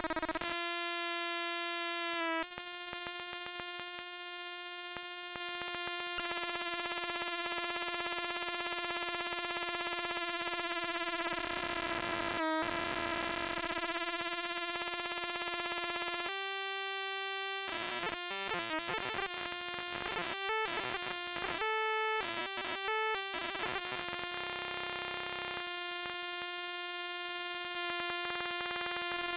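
Homemade Atari Punk Console–style stepped tone generator giving a buzzy electronic tone rich in overtones, mostly held on one pitch while its knobs are turned. Near the middle the pitch briefly sweeps, and in the second half the tone breaks into choppy stuttering pulses before settling back to a steady buzz.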